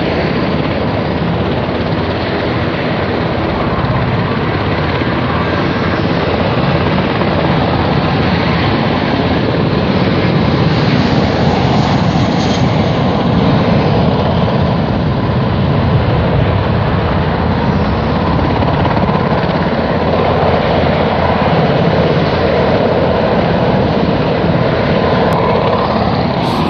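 Aircraft engine noise across an airfield: a loud, steady drone that swells slightly in the middle.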